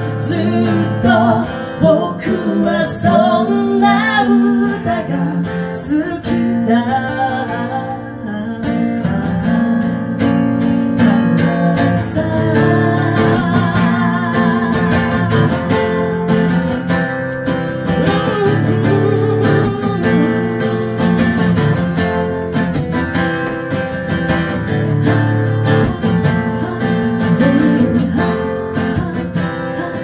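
Live song: an acoustic guitar strummed steadily with a woman's voice singing over it, the voice most prominent in the first half.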